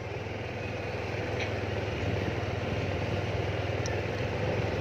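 Motorcycle engine running steadily at low speed, heard from the rider's seat, a low even hum under a constant rushing noise.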